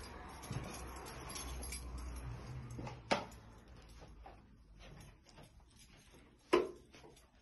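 Faint footsteps and camera handling noise while walking through rooms, with two sharp knocks about three and a half seconds apart.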